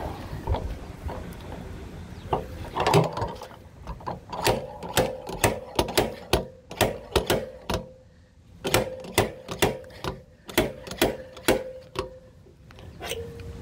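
Sharp metallic clicks and knocks, about two a second, from a dent puller working a thick steel panel. They start a few seconds in, pause briefly near the middle and resume, over a faint steady tone.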